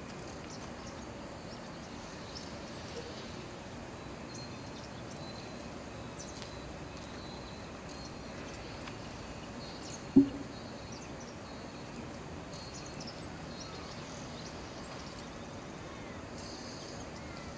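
Steady background ambience with faint small birds chirping now and then, and one short, sharp low thump about ten seconds in.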